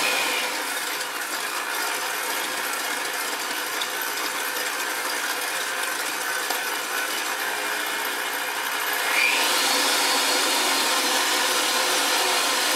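Electric hand mixer running steadily, its beaters whipping a sugar, oil and egg mixture in a glass bowl. About nine seconds in it speeds up with a short rising whine and runs louder.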